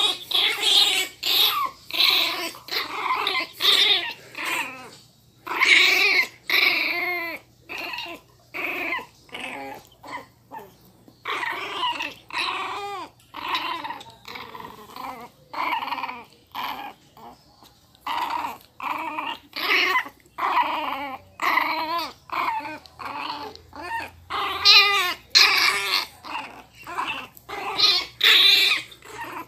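Miniature pinscher puppy growling and yapping angrily, short high-pitched calls coming a few times a second with brief pauses.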